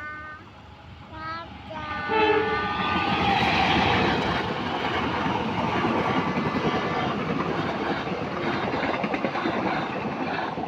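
A train passing close by, a loud steady rush of wheel and rail noise with clatter, starting about two seconds in, with short horn tones sounding over it.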